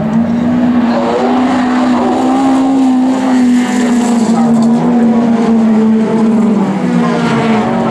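A folk-race rallycross car's engine held at high revs as it races on the gravel track. The note stays high and steady, then eases slightly lower in the second half.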